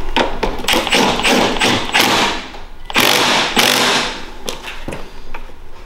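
A power tool with a 14 mm socket runs a bolt on the mini bike's front fork in several short bursts, about half a second to a second each.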